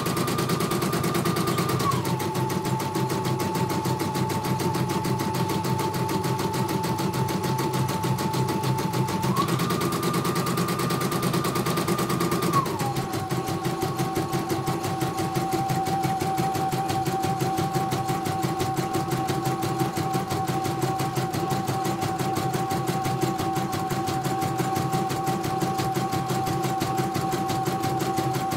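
CNY portable computerized embroidery machine stitching a design at speed: a fast, even needle clatter over a motor whine. The whine drops in pitch about two seconds in, steps up again around nine or ten seconds in, and settles a little lower from about thirteen seconds on. This is a test run of the machine after repair.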